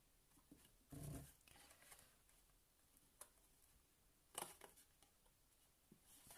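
Near silence, broken by a few faint rustles and taps of card stock being handled as a paper box's sides are pressed into shape at the corners. The sharpest tap comes about four and a half seconds in.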